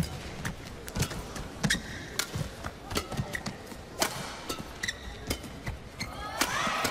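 Badminton rally: racquets strike the shuttlecock back and forth in sharp cracks, roughly one a second, along with players' footwork and shoe squeaks on the court.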